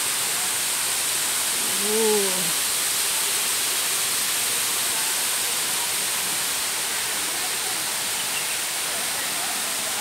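Steady rushing noise of a high waterfall pouring into a rocky pool. About two seconds in, a person's short call rises and falls once.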